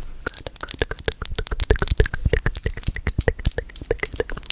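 Close-miked ASMR mouth sounds: a quick, irregular run of wet clicks and pops, several a second.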